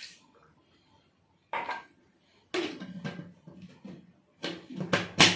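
Kitchen handling of a plastic blender jar and its lid: a few scattered knocks, then a cluster of sharp plastic clicks near the end as the lid is pressed onto the jar, the loudest click last.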